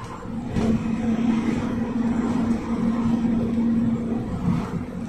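GAZelle Next minibus driving at speed, heard from inside the passenger cabin: a steady drivetrain hum over rumbling road noise. The hum swells about half a second in and eases off near the end.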